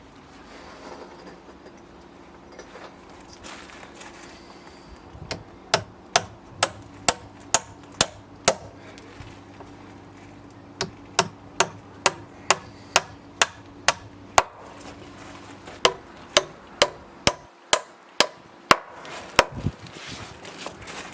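Hammer driving nails into timber: three runs of sharp, evenly paced blows, about two a second.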